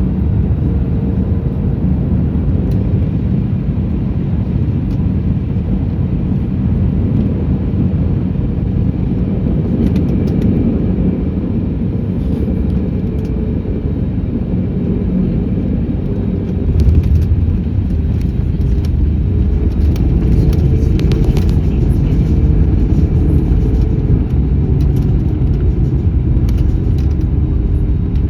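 Airliner cabin noise on a landing: a steady engine and airflow rumble with a faint engine tone. Just past halfway the rumble suddenly grows louder, with cabin rattles, as the wheels touch down and the aircraft rolls out on the runway.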